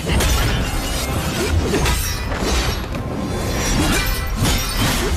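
Animated battle sound effects over a loud music score: a dense run of clashing, shattering impacts and whooshes.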